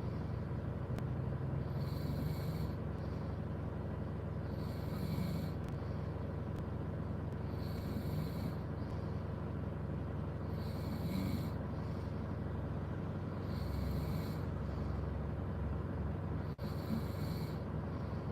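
A person snoring, one breath about every three seconds, over a steady low hum.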